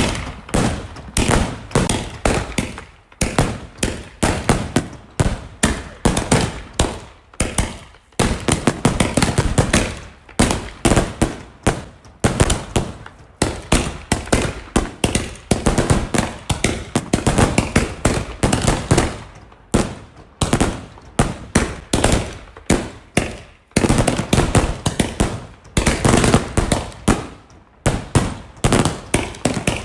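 Firecrackers or fireworks going off in rapid strings of sharp bangs, dozens in quick succession, in volleys of several seconds with brief lulls between them.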